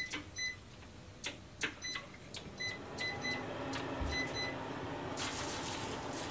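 A kitchen appliance's control panel beeping in short electronic tones as a cooking time is keyed in, with light clicks of handling. About three seconds in the appliance starts running with a low steady hum, and a steady hiss comes in near the end.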